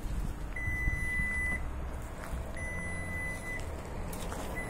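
Ford F-150 Lightning's power front trunk closing, its warning beeper giving three steady high beeps, each about a second long and about two seconds apart.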